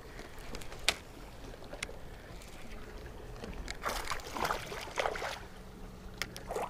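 Small smallmouth bass splashing at the surface beside the boat as it is reeled in, over faint water lapping against the hull, with a few sharp clicks.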